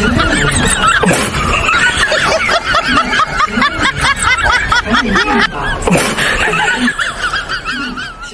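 High-pitched snickering laughter from several voices at once, running on without a break.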